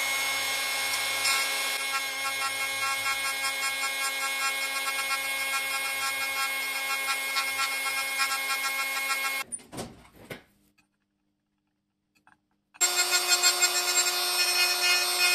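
Proxxon rotary tool with a small burr running with a steady whine, grinding into a brass air-bearing pad with a scratchy rasp to remove a scratched groove. About nine and a half seconds in it stops with a few clicks and the sound drops out for about three seconds, then the tool is heard grinding again at a slightly higher pitch.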